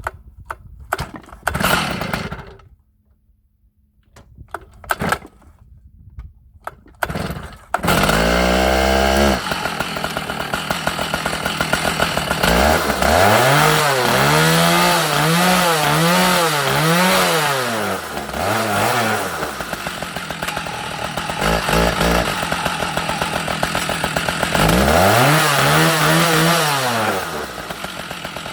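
Stihl 056 AV Magnum 2 chainsaw, an 87 cc two-stroke, being pull-started. Several pulls on the starter cord, then it catches about eight seconds in and runs loud. The throttle is blipped in a quick series of revs, then revved once more near the end.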